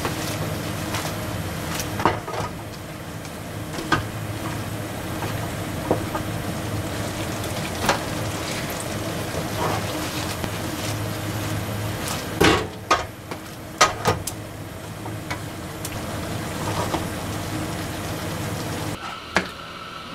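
Cooking utensil knocking and scraping against a nonstick frying pan as pasta is stirred and tossed in sauce, a sharp knock every second or two with a quick run of them a little past halfway. Under it a steady hum runs until it stops shortly before the end.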